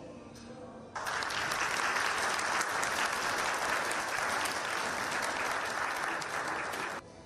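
Audience applauding. The clapping starts abruptly about a second in and is cut off near the end.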